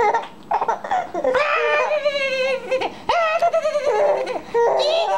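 Young baby letting out a string of long, wavering, high-pitched squeals, about five in a row.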